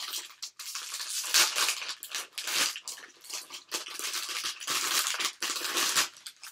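Foil blind-bag wrapper crinkling and tearing as it is pulled open by hand, in quick irregular rustles.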